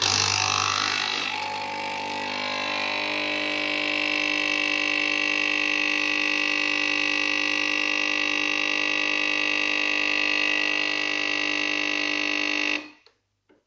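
Capsule espresso machine's pump buzzing steadily as it brews a shot, starting with a brief hiss and stopping abruptly near the end.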